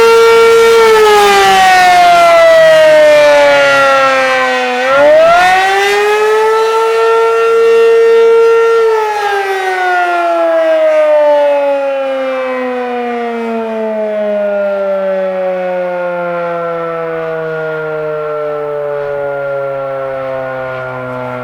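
ACA P-15 outdoor warning siren sounding the attack signal. It holds a steady tone, winds down, sweeps quickly back up about five seconds in and holds again, then winds down slowly and at length, its pitch still falling near the end.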